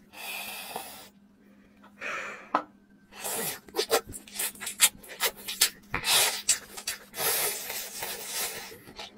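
Close-miked eating sounds of shredded spicy chicken being eaten: two breathy hisses at the start, then from about three seconds in, wet chewing with many sharp mouth clicks and smacks.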